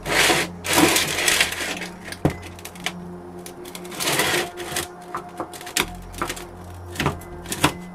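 The two halves of a sand-casting flask being handled and fitted together: rubbing and scraping with several sharp knocks as the halves meet, the loudest knocks near the end.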